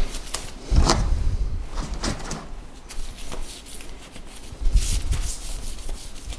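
Gloved hand rubbing freshly applied ISO 68 oil over the slideways of a surface grinder's base, in a few scraping strokes about a second, two seconds and five seconds in, with light low knocks.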